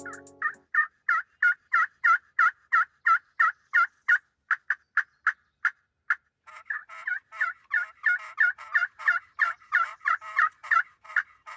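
Wild turkey yelping: a long, even run of short yelps, about three a second, breaking off briefly about six seconds in and then resuming faster.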